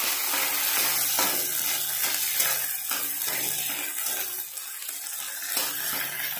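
Onions, garlic and a ginger-cumin-chili paste sizzling in hot oil in a wok, with a spatula stirring and scraping the pan in repeated strokes. The sizzle eases a little past the middle.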